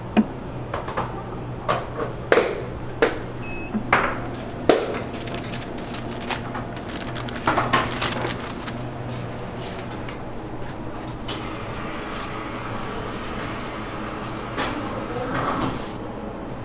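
Sharp clicks and knocks of metal utensils and waffle handling during waffle preparation, thickest in the first half, over a steady low hum of shop refrigeration. Near the end comes a softer scraping as a spatula spreads cream across a waffle.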